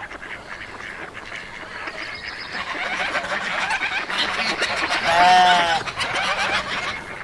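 Farmyard fowl, geese and ducks among them, calling over one another in a busy chatter that grows louder over the first few seconds. A little after five seconds in, one loud drawn-out call rises and falls in pitch over the chatter.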